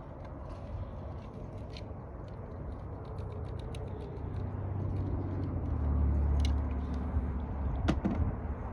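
Handling noise of hands working on a rubber fuel hose and fittings: light scattered clicks and scrapes, with one sharp click near the end. Under it a low rumble grows louder about halfway through and holds.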